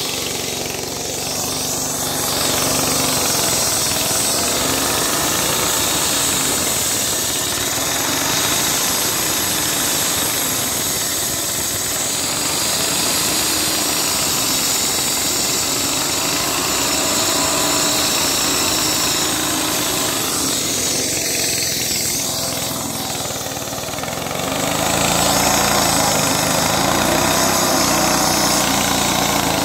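Diesel-engined walk-behind concrete saw running steadily under load as its water-cooled blade cuts into a concrete slab: engine noise mixed with the grinding of the blade in the concrete, a little louder for the last few seconds.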